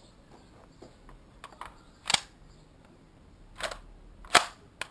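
Sharp mechanical clacks from a WE L85A2 gas blowback airsoft rifle being handled and its charging handle worked: about half a dozen clicks, the two loudest about two seconds in and near the end.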